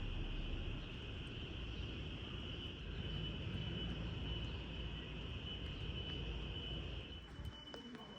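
Insects keep up a steady, high, unbroken drone over a low rumble, likely distant traffic, that fades about seven seconds in.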